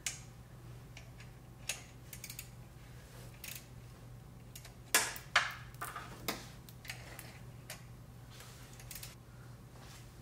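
Scattered metal clicks and clinks of a socket wrench and extension working the serpentine belt tensioner's bolt loose, with two sharper clinks about five seconds in, over a steady low hum.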